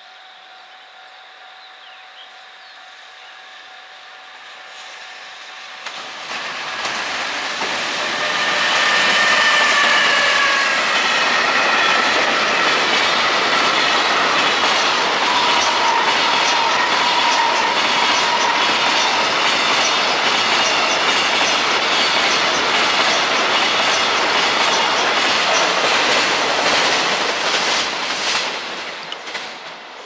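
A container freight train hauled by a JR Freight EF210 electric locomotive passes at speed. The sound builds over the first several seconds into a loud, steady clattering of wagon wheels over the rail joints, then eases off near the end as the last wagons go by.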